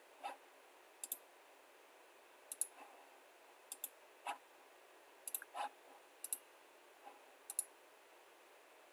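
Computer mouse buttons clicking: short, sharp clicks a second or so apart, several in quick pairs like double-clicks, with a few softer knocks, over a faint steady hiss.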